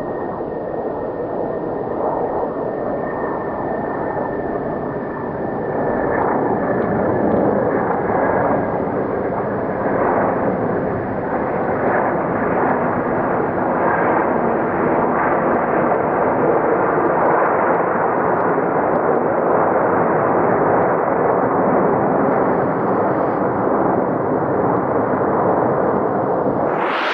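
Jet airliner noise slowed down with slow-motion touchdown footage: a dull, steady rumbling roar with the treble cut away. It swells a little after about five seconds, and a faint high whistle fades out early on.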